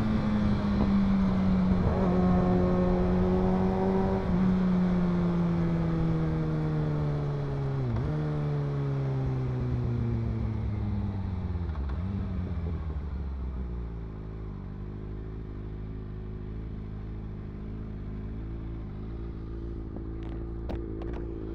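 Sportbike engine slowing down: the revs fall steadily, jumping back up briefly at about four, eight and twelve seconds in as it shifts down. From about fourteen seconds it settles into a steady idle, with a few faint clicks near the end.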